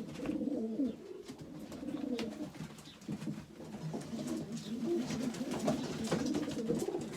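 Several young racing pigeons cooing at once, low warbling calls overlapping throughout, with a few light taps among them.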